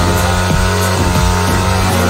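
Background music with a steady beat over a sport motorcycle's engine held at high, steady revs while its rear tyre spins and smokes in a burnout.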